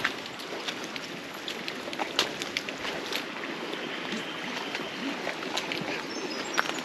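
Steady rushing of running water from a stream, with many short sharp clicks scattered through it.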